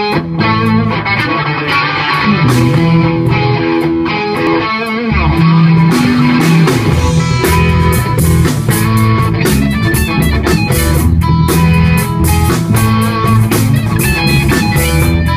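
Live rock band playing an instrumental intro. Electric guitar leads alone at first, and about five seconds in the bass guitar and full drums come in.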